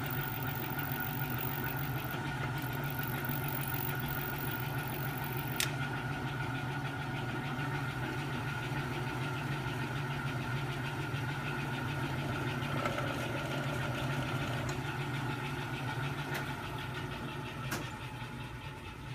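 Hardinge TFB-H super-precision toolroom lathe running under power with its carriage power feed engaged: a steady motor and drive hum with a higher whine above it. There is one sharp click about six seconds in, and the sound drops a little near the end.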